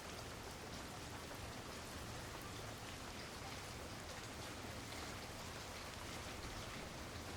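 Steady rain falling in a backyard, an even hiss with many small drop ticks scattered through it.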